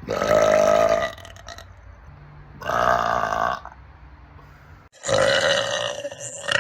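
Three loud, rough burps from girls, one after another with short pauses between. The first two last about a second each, and the third, about five seconds in, runs a little longer.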